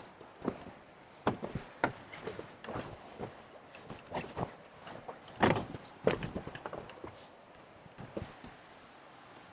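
Irregular series of short knocks, taps and clatters of varied loudness, the loudest a little over five seconds in.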